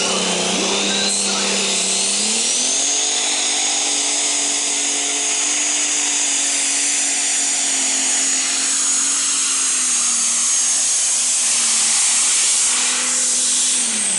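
Pulling tractor 'Rocket Science' running flat out as it drags the weight-transfer sled down the track. A high whine climbs over the first two seconds and then holds, while the engine note steps up in pitch about two seconds in and stays steady and loud.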